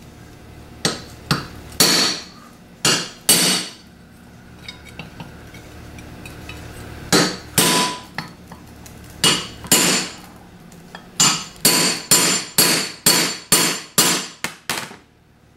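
Ball-peen hammer striking a 1/2-inch socket extension to drive the needle bearing out of a GM CS144 alternator's rear housing: sharp metal-on-metal blows that ring. The blows come singly and in pairs at first, stop for about three seconds, then come faster, about ten blows in the last four seconds.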